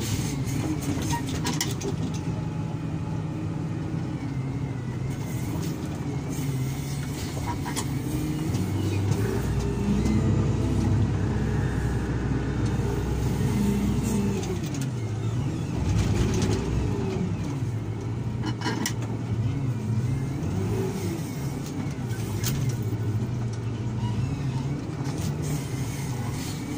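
SDLG wheel loader's diesel engine running under work, its pitch rising and falling several times as it revs up and settles, with a few light knocks.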